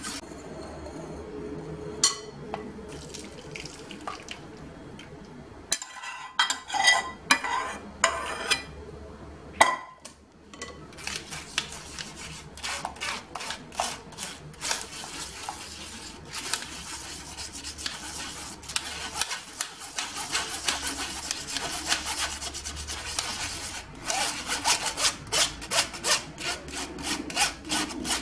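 A whisk stirring a strawberry and gelatin mixture in a metal saucepan, with a few sharp knocks of utensils against the pan about six to nine seconds in. Then a metal spoon scrapes and rubs the liquid through a plastic mesh sieve in quick repeated strokes, straining out the bits.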